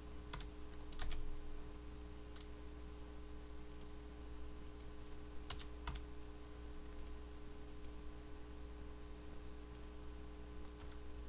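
Faint typing on a computer keyboard with clicks, a few scattered keystrokes at a time, over a steady low hum.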